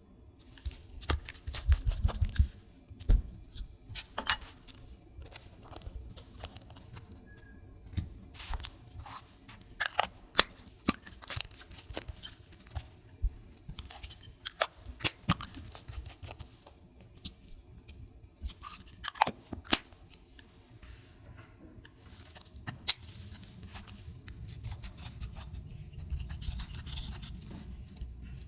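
Slime being squished and stretched by hand, with irregular sticky clicks, crackles and small pops.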